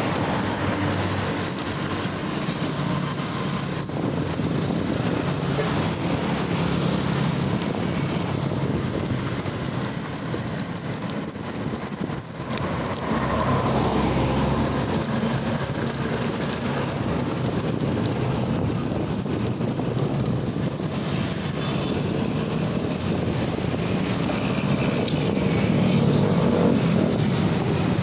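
Road traffic heard from a moving bike: a steady engine drone from jeepneys and motorcycles under continuous wind and road noise on the microphone, swelling a little about halfway through and again near the end.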